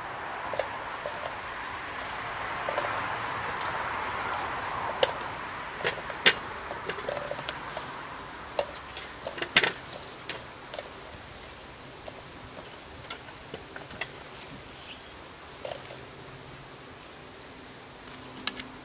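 Chunks of raw potato and carrot dropped by hand into an empty cast-iron Dutch oven, landing as a scatter of sharp, irregular knocks and clicks, with a soft hiss underneath that fades out about halfway.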